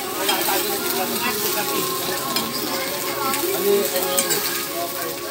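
Scrambled eggs sizzling in a frying pan while a fork stirs and scrapes through them, with light clicks of the fork against the pan.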